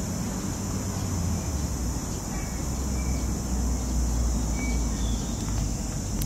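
Outdoor ambience dominated by a steady low rumble of wind on the microphone, with a steady high hiss over it and a few short, thin bird chirps about two and a half, three and four and a half seconds in.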